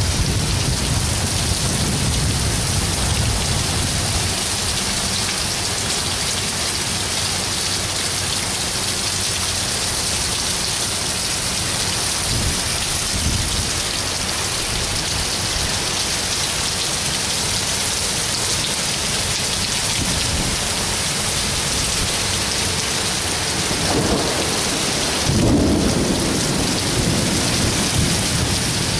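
Heavy thunderstorm downpour: rain hissing down steadily and hard. Low rumbles of thunder fade out in the first few seconds, then roll in again about five seconds before the end.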